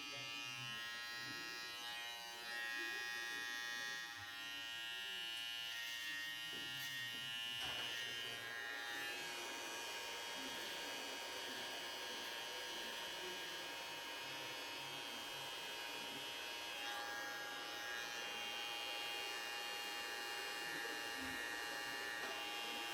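Electric hair clippers running with a steady buzz; the tone changes about eight seconds in.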